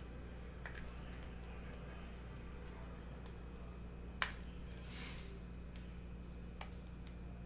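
Trading cards being handled on a table: a few faint taps and clicks, the sharpest about four seconds in, over a steady low hum and a thin high whine.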